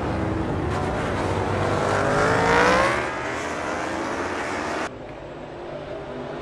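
MotoGP racing motorcycle engines at speed. One climbs in pitch as it accelerates, loudest about two to three seconds in. About five seconds in the sound cuts abruptly to quieter, steadier engine noise.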